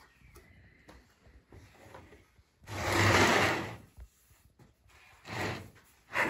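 Upper millstone of a Roman-style hand quern scraping over the stone beneath as it is turned and shifted by hand. One rough scrape about three seconds in lasts about a second, and shorter scrapes follow near the end.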